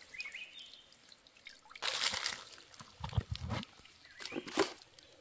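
Water dripping and trickling from a mesh fish trap lifted out of a stream, with a splash about two seconds in. A few dull thumps and sharp clicks of handling follow.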